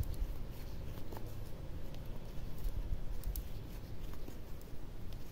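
Metal crochet hook working yarn into double crochet stitches: soft rustling of the yarn with scattered light scratchy ticks, over a steady low rumble.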